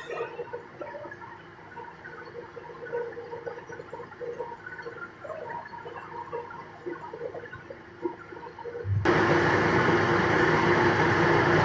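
Faint scattered knocks and clicks of handling, then about nine seconds in a wood lathe's motor switches on and runs steadily with a constant hum.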